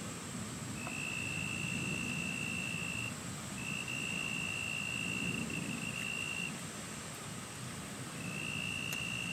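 A high-pitched insect trill held on one steady note. It comes in long stretches of two to three seconds with short breaks, the first starting about a second in and another near the end.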